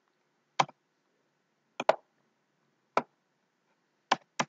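Sharp clicks of a computer mouse, about one a second, with two in quick succession near the end.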